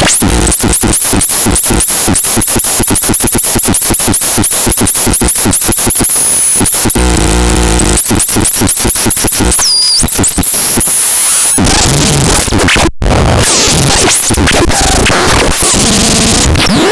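Loud, harsh electronic noise: a rapid stuttering pulse for about the first half, then chopped noise with glitchy high sweeps and a brief cut-out about thirteen seconds in.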